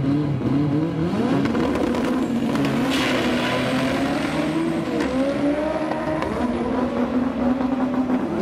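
Turbocharged Honda Civic drag car's four-cylinder engine revving at the start line, then launching and pulling hard down the drag strip, its note dipping and rising again at the gear changes.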